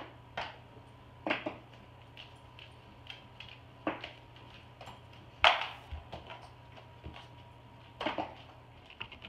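A plastic marker being tossed and knocking against hard surfaces: a series of short, sharp clacks at uneven intervals, the loudest about five and a half seconds in, over a faint steady electrical hum.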